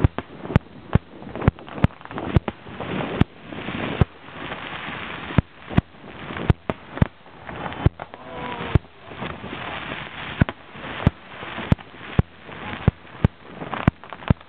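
Aerial fireworks shells bursting in a rapid, irregular barrage of sharp bangs, roughly two a second, with a rough noisy hiss between the bangs.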